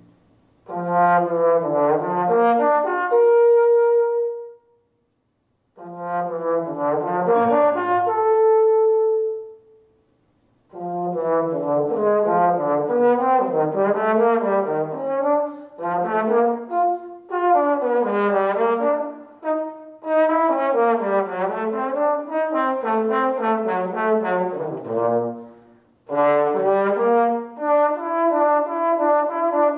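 Unaccompanied trombone solo. It plays two short phrases, each ending on a held high note, with brief pauses after them. Then comes a long run of quick notes moving up and down, and about four seconds before the end it settles onto a sustained note.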